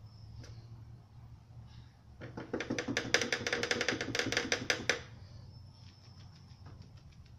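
An aerosol spray-paint can shaken hard for about three seconds, its mixing ball rattling in a fast, even clatter, then fainter rattles as the shaking slows.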